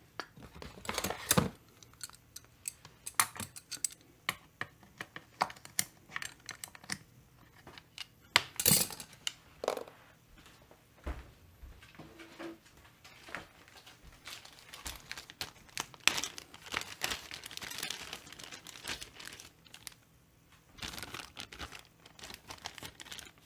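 Small chainsaw parts and tools handled on a workbench: scattered clicks and taps, with stretches of plastic parts-bag crinkling.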